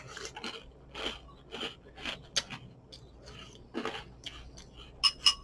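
Dry crunchy cereal being chewed, in irregular crunching bursts. Two short ringing clinks come near the end.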